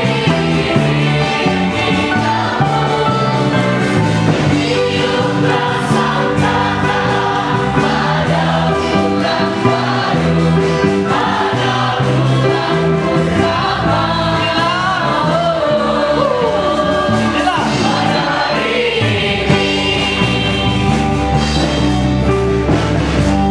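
Worship team singing an upbeat praise song as a group, with a band accompanying.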